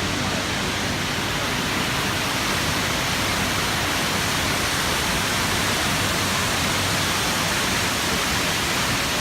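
Waterfall rushing: a loud, steady, even wash of falling water with no breaks.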